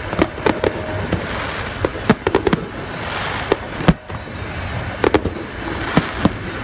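Aerial fireworks bursting: irregular sharp pops and bangs over a steady background noise, with a quick cluster about two seconds in, a single strong bang near four seconds, and another cluster around five seconds.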